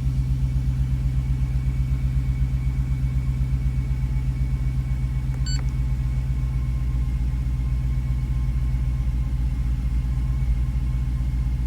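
2006 Jeep SRT8's 6.1-litre Hemi V8 idling low with a steady, pulsing rumble and a bit of a chug from a cylinder 5 misfire. A brief click about halfway through.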